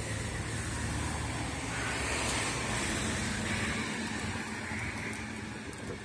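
1981 Chevrolet K10 pickup's V8 engine idling steadily.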